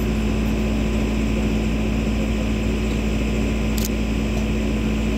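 Steady mechanical drone with a constant low hum, like an engine or motor running unchanged, and a brief faint click nearly four seconds in.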